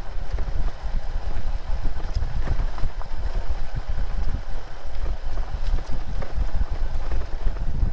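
Dual-sport motorcycle riding down a dirt track: a steady low engine rumble mixed with uneven wind noise on the microphone.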